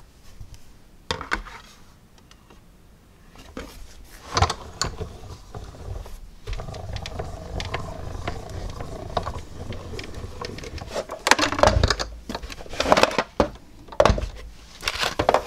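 Hand-cranked die-cutting machine turning, its rollers drawing the cutting plates with a die and cardstock through in a steady low rumble from about four seconds in. Near the end come several sharp knocks and clacks as the plates are handled on the machine.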